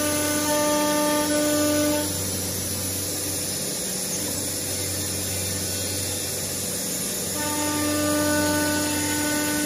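CNC router's 6 kW spindle running and cutting into aluminum composite panel, over a steady machine hum. Its pitched whine is louder for the first two seconds, fades, then returns from about seven and a half seconds in.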